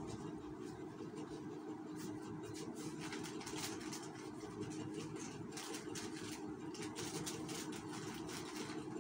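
Plastic sachet strips rustling and crinkling as they are handled, coming and going from about two seconds in, over a steady machine hum.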